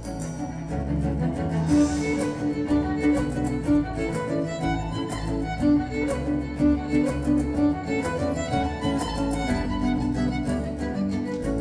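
Live instrumental music from a small folk-pop band: violin and cello carry a melody over bass and light percussion.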